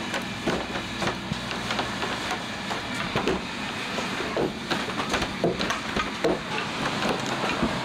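Machinery running with a steady low hum and irregular clattering knocks.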